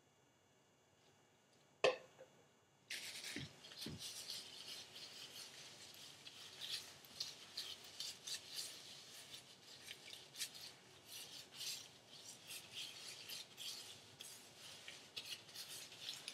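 Gloved hands working protein treatment through hair: a continuous crackling, squishy rubbing that sounds like bubbling soap suds, starting about three seconds in after a single sharp click.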